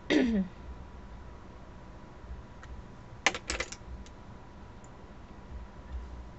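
A brief falling vocal sound right at the start, then a quick cluster of five or six light clicks about three seconds in, from handling a jumbo eye pencil while swatching it.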